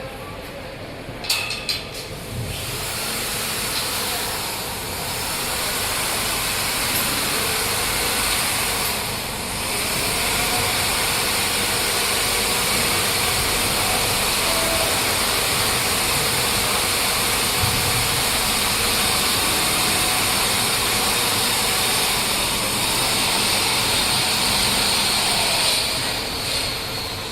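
Wire accumulator's shuttle carriage ("small car") rolling along its track with the machine running: a steady mechanical rumble with a strong hiss, after a few sharp clicks near the start.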